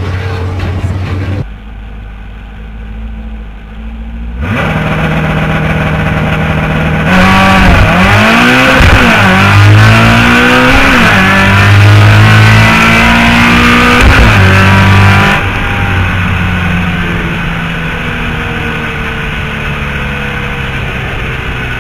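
Air-cooled Volkswagen Beetle drag-race engine making a full-throttle pass. Its pitch climbs and drops several times as it shifts up through the gears, then it eases off about two-thirds of the way in and runs on quieter, slowly falling in pitch as the car coasts.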